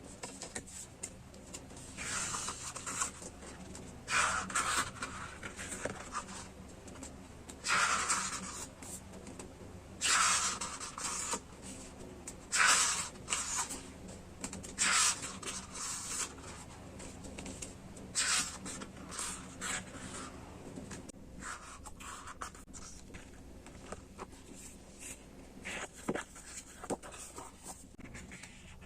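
Paper and packaging being handled: a series of short rustling, rubbing sounds about every two to three seconds, giving way after about twenty seconds to fainter light taps and clicks.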